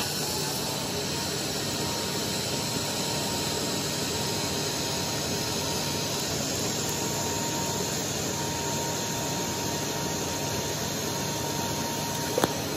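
TIG welding arc on stainless steel at 150 amps DC, run without filler rod: a steady hiss with a faint high tone that holds level for about twelve seconds and stops near the end.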